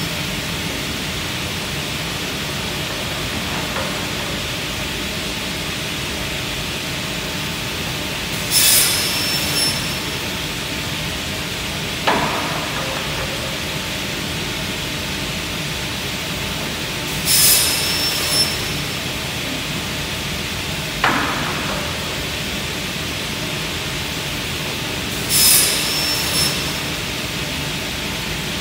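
Salvamac Classic 50 automatic crosscut saw cutting boards over a steady hum of machinery. Three cuts about nine seconds apart, each a hissing, whining burst of about a second, with a single sharp knock between cuts.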